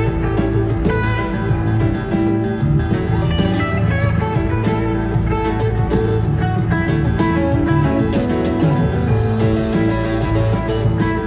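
Live rock band playing: guitar lines over bass and a steady drum beat.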